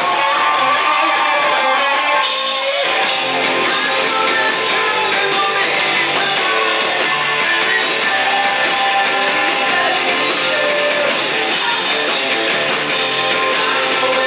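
Rock band playing live, with strummed guitar and drums; the sound gets fuller and heavier in the bass about three seconds in.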